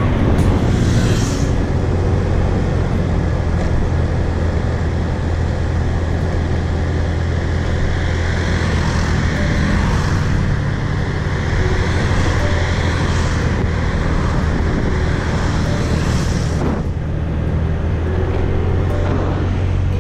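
Motorbike running steadily at road speed, its engine giving a steady low drone under a rush of wind and road noise. The rushing thins sharply near the end.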